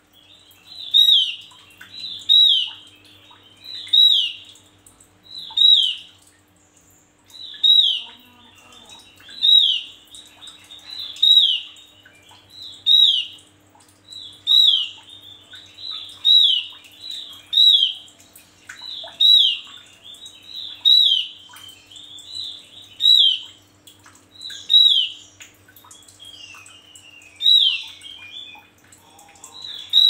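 Male Javan grey-throated white-eye (opior jawa) singing actively, loud high notes, each falling in pitch, repeated about once a second with a short pause about six seconds in. A faint steady low hum lies underneath.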